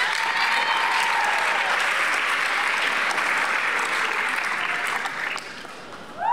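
Audience applauding with a dense, steady clatter of clapping that dies away about five and a half seconds in.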